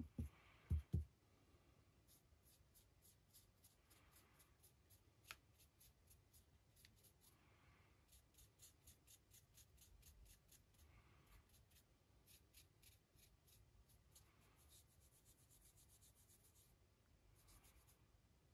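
Faint scratching of a fine paintbrush's bristles against a resin figure in quick downward highlight strokes, heard as runs of small ticks. Two soft knocks about a second in, from handling the figure.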